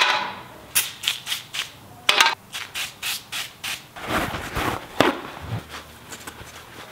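Aerosol glass cleaner sprayed in short hisses onto chrome grille pieces, then a paper towel rubbing across them in quick wiping strokes to clean the surface before painting.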